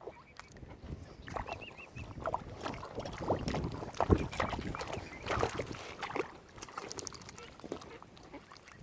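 Mute swans and mallard ducks calling close by: a busy run of short honking and quacking calls, with one sharp, louder sound about four seconds in.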